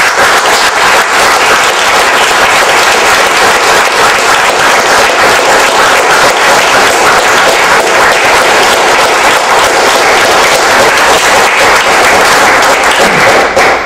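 Audience applauding: loud, steady clapping that starts all at once and stops abruptly near the end.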